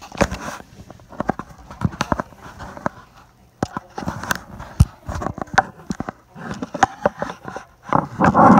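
Irregular knocks, bumps and rustling from a phone being handled and jostled, with a louder run of rubbing and thumps near the end.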